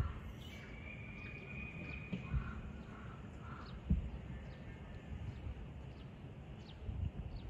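Quiet outdoor ambience: faint, scattered high bird chirps over a low rumbling background noise.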